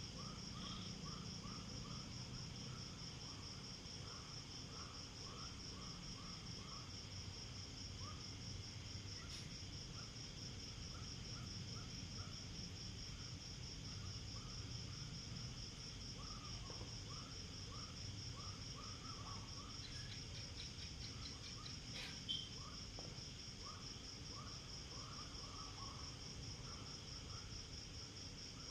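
Night insects chirping in a chorus: a steady, fast-pulsing high trill runs throughout, with groups of shorter, lower chirps repeating in between. A single sharp click is heard about 22 seconds in.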